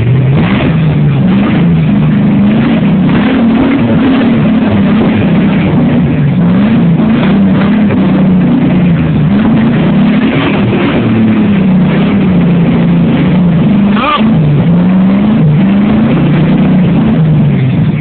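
A Jeep Wrangler's 5.7 Vortec V8 revving hard and repeatedly, its pitch rising and falling over and over, as the Jeep's open differentials struggle for traction on damp rock and soil. A sharp knock sounds about three-quarters of the way through.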